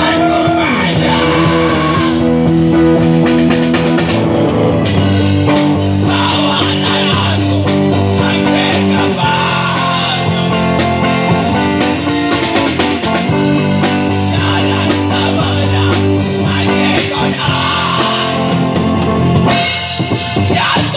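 Live street band playing amplified rock music on a drum kit and guitar, with a man singing into a microphone.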